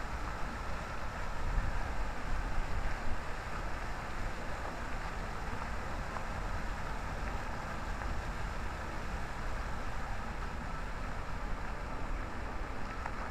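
Many fountain jets splashing steadily into a basin, a constant rush of falling water, with low wind rumble on the microphone that swells a little a couple of seconds in.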